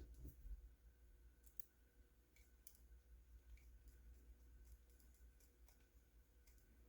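Faint, scattered light clicks of small parts and tools being handled during the assembly of a small 3D-printed RC truck, over a faint steady hum.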